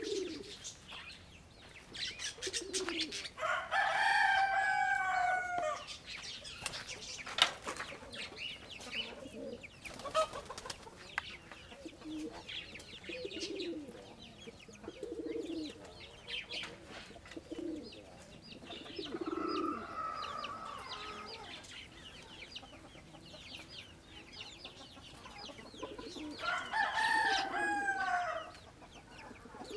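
Pigeons cooing in short, low bouts, with a rooster crowing twice, louder, about four seconds in and again near the end; each crow falls in pitch at its close.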